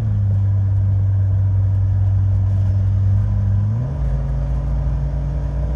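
Lifted Jeep Grand Cherokee ZJ on 38-inch tyres driving on the road, heard inside the cabin: a steady low engine and road drone that rises a little in pitch about four seconds in.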